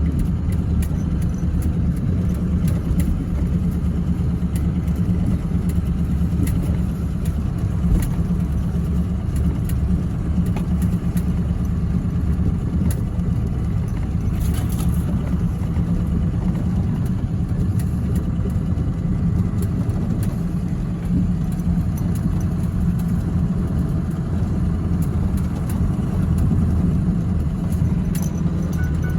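Pickup truck driving slowly over a rough, muddy bush road with a tractor loaded on the back: a steady low engine and road rumble with scattered knocks and rattles, the sharpest about eight seconds in.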